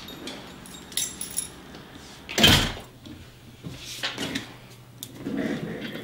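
A door closing with a sharp bang about two and a half seconds in, after a few light metallic clicks of keys or a latch. Softer rustling and shuffling follow.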